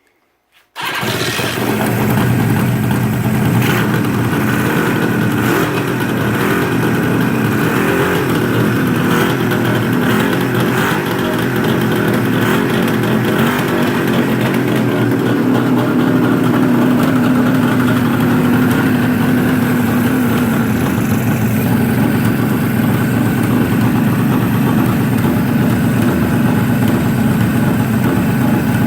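A 1974 Suzuki GT550's three-cylinder two-stroke engine catches less than a second in and runs on steadily on its freshly installed exhaust: the restored bike's first start with the pipes on.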